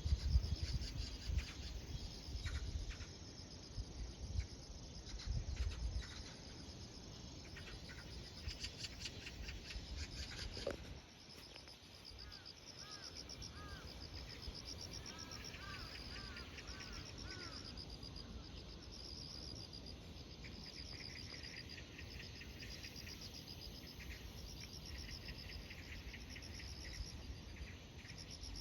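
Insects chirping steadily in quick, even pulses. A bird gives a few short arched call notes near the middle, and a low rumble sits under the first few seconds.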